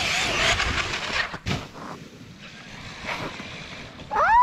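Traxxas X-Maxx 8S RC monster truck's brushless electric motor whining at full throttle as its tyres churn through snow, then a sharp thud about one and a half seconds in. Near the end a child gives a loud, rising excited shriek.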